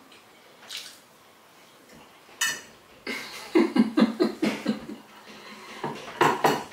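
A fork clinks once against a ceramic plate about two and a half seconds in, followed by a person's voice making a quick run of short sounds, then a clatter as the plate is set down on a kitchen counter near the end.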